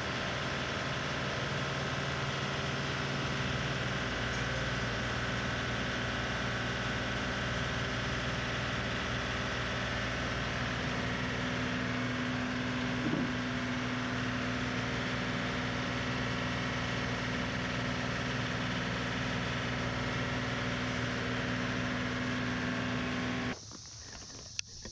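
John Deere 3038E compact tractor's three-cylinder diesel engine running steadily while the front loader works pallet forks under a load. Its note changes slightly about halfway through, and the engine sound cuts off abruptly near the end.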